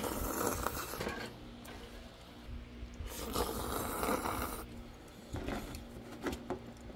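Kalguksu noodles slurped from chopsticks in two long slurps, then a few light clicks of a spoon and chopsticks against a small steel bowl.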